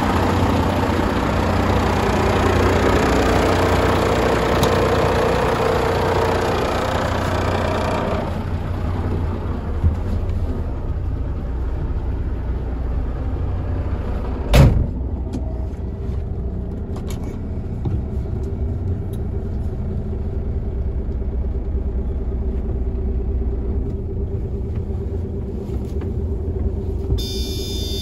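Scania 94G 260's nine-litre five-cylinder diesel idling steadily, a constant low rumble. It turns duller about a third of the way through, as heard from inside the cab. One sharp knock comes about halfway through.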